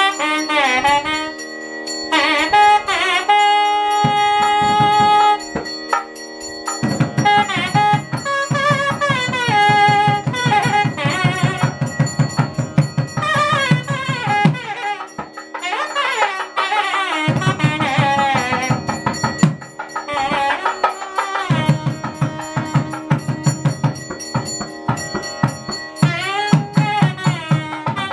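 South Indian devotional music: a melody line that bends and glides in pitch over fast, rapid drum strokes. The drumming comes in about a quarter of the way through and breaks off twice before resuming.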